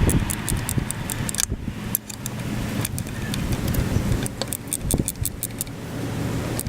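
Irregular light clicks, knocks and rattles from hands working on parts and fittings under a car's hood, with a sharper knock at the very start.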